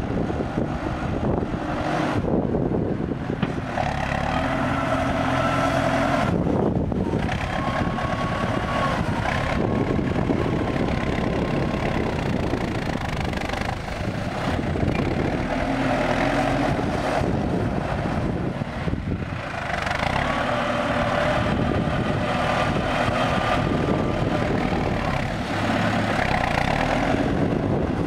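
CLAAS Talos 240 tractor's diesel engine running under load while its front blade pushes soil, with a higher steady tone that comes and goes several times.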